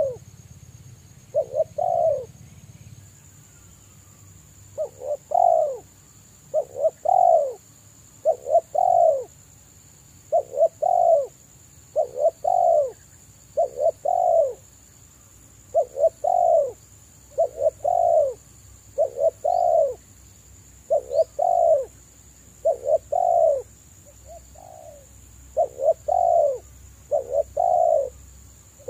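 Spotted dove cooing over and over: short, low coo phrases that fall in pitch, repeated about every one and a half to two seconds.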